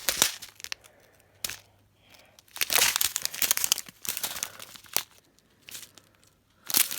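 Small plastic bags crinkling as they are handled, in irregular rustling bursts with a longer spell of crinkling near the middle.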